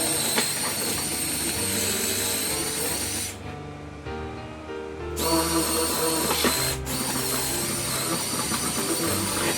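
Background music over sped-up power drill noise, heard as a high-pitched whirring chatter. The drill runs in two stretches with a lull of about two seconds in the middle.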